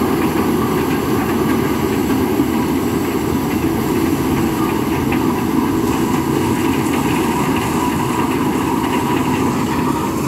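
Compact tracked corn combine harvester running steadily as it cuts and threshes dry corn stalks, its engine and machinery making a continuous, even din.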